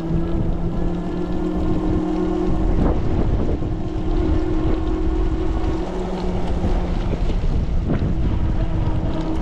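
Ariel Rider Grizzly e-bike running at speed on a wet road: the electric hub motor gives a steady whine, which fades out for a few seconds mid-way and comes back. Under it, wind buffets the microphone and the tyres hiss on the wet pavement.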